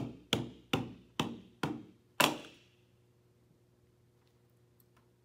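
A plastic Buzz Lightyear action figure knocked down on a tabletop six times as it is hopped along, each knock a little under half a second after the last and followed by a brief ring; the last knock is the loudest. Then faint room tone.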